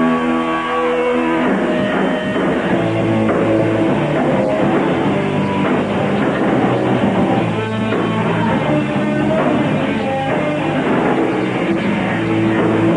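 Live rock band of drums, bass and electric guitar playing loudly. A held chord rings for about a second and a half, then the full band kicks back in with busy drumming and guitar.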